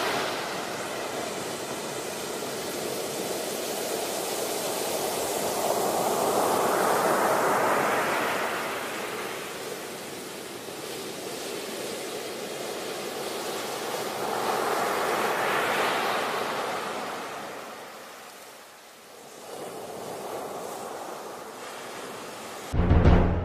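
A rushing, surf-like noise that slowly swells and ebbs twice. Music with heavy low drum hits cuts in just before the end.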